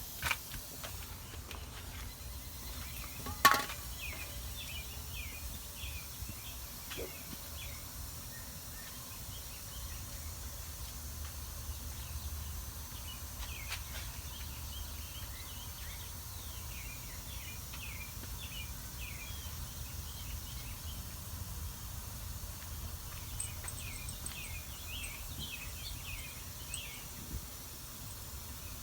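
Outdoor background noise with a steady low rumble and small birds chirping on and off, with one sharp click about three and a half seconds in.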